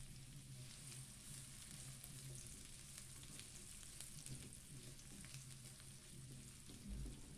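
Chopped onion frying faintly in oil in a non-stick wok, a steady sizzle with fine crackles, as it is stirred with a silicone spatula. A soft low thump near the end.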